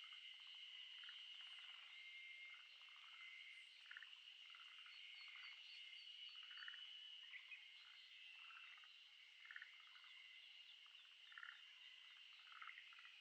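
Faint frog chorus: a steady high-pitched trill under short, pulsed croaks that repeat about once a second.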